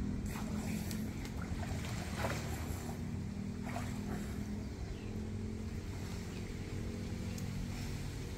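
An engine running at a steady low hum throughout, with a few faint short noises over it.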